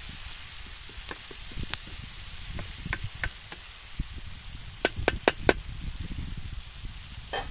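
Wooden spoon stirring a stew in a metal pan over a campfire, the spoon clicking against the pan, then a quick run of four sharp knocks about five seconds in. Soft sizzling underneath.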